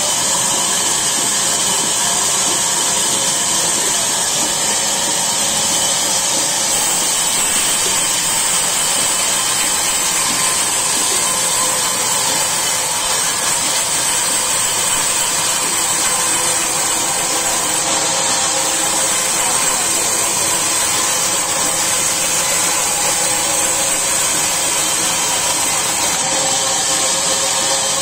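Large band sawmill running, its blade cutting lengthwise through a log as it is fed through: a steady, high-pitched noise with no let-up.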